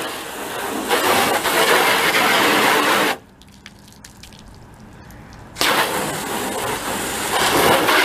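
Garden hose spraying water onto a car's hood, the spray hitting the paint for about three seconds. It stops, then starts again about two and a half seconds later.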